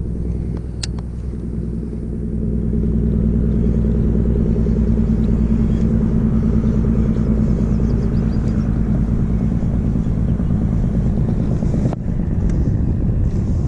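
A boat motor running with a steady low hum that grows louder about two seconds in.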